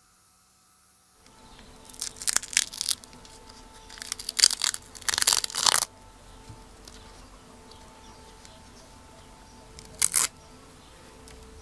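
Plastic mesh being peeled off sticky tape: crackly tearing bursts, two runs of them in the first half and a short one near the end, over a faint steady hum.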